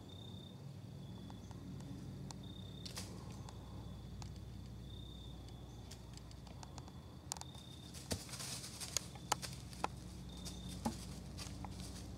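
Quiet woodland with a short, high chirp repeating every second or two. From about seven seconds in comes a string of sharp crunches and rustles in dry leaf litter, the loudest sounds here.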